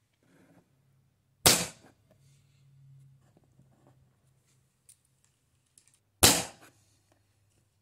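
Two shots from a Webley Junior .177 spring-piston air pistol, about five seconds apart, each a sharp crack that dies away within half a second; the pellets cross the chronograph at about 300 fps. Faint small clicks and handling noises between the shots.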